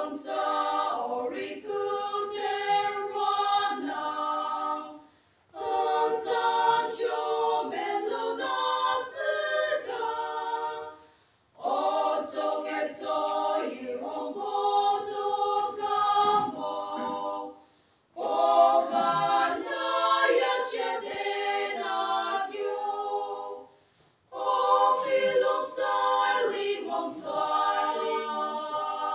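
Small women's choir of seven singing a church song a cappella, in unison phrases of about five or six seconds with brief pauses for breath between them.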